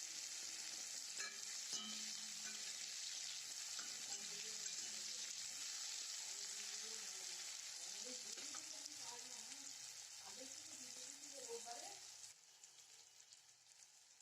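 Chopped onions sizzling in hot mustard oil in a kadai: a steady frying hiss, with a few light clicks of a spatula stirring. The sizzle cuts off abruptly near the end.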